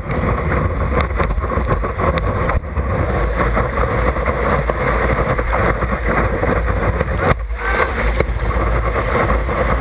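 Rushing water and wind buffeting a waterproof camera at the surface of a breaking wave: a loud, steady, noisy rush with a heavy low rumble, dipping briefly about seven seconds in.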